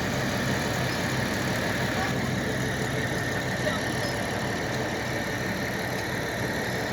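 An engine running steadily, with a faint high whine over a low hum.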